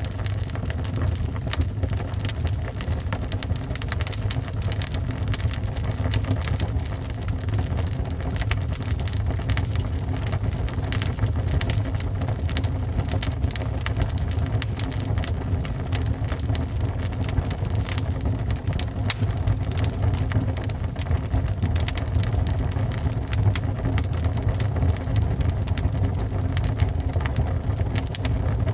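Log fire burning in a fireplace: a steady low rumble with frequent sharp crackles throughout.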